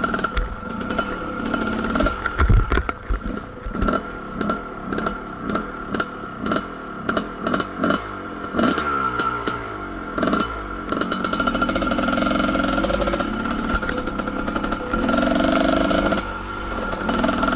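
Kawasaki KDX220 two-stroke dirt bike running along a rough trail. In the first half, sharp clatters come about twice a second over a low engine note, and the revs fall away near the middle. In the second half the engine pulls steadily on the throttle.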